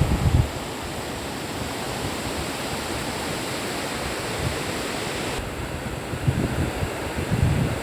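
River water rushing steadily, with low rumbles of wind on the microphone right at the start and again near the end.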